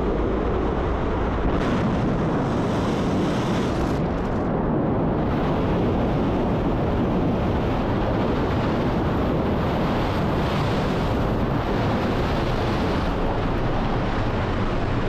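Soyuz-2.1b rocket lifting off with its engines firing: a steady, dense rushing noise with a deep rumble underneath, holding the same level throughout.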